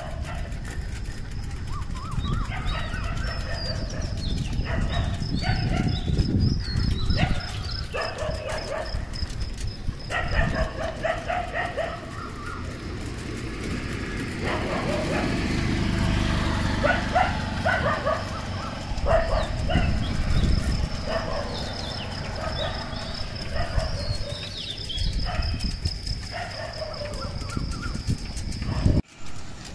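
Dawn chorus of many birds calling in short repeated phrases, with a thin high steady trill running through long stretches, over a constant low outdoor rumble. The sound drops out briefly near the end.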